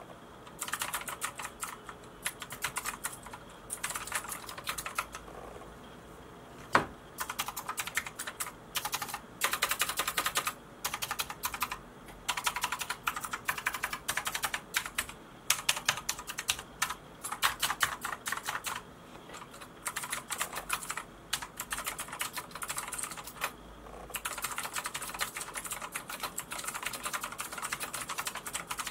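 Typing on a Micronics MANIC X48 gaming keyboard with 4th-generation optical switches: rapid keystroke clicks in bursts with short pauses between them, and one louder single keystroke about seven seconds in.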